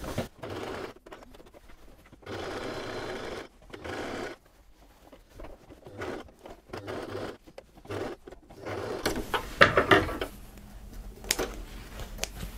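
Household electric sewing machine stitching a test seam in short stop-start runs, the longest about a second and a half, after its broken plastic parts were glued back on. In the last few seconds, sharp clicks and rustling take over.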